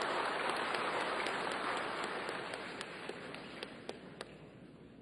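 Audience applause, a dense patter of clapping that thins out and dies away to a few last claps.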